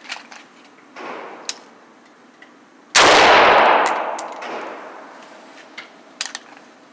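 A single AR-15 rifle shot fired from the low ready about three seconds in, a sharp loud crack with a long echoing tail in an indoor range. A weaker report comes about a second in, and there are a few light clicks of handling.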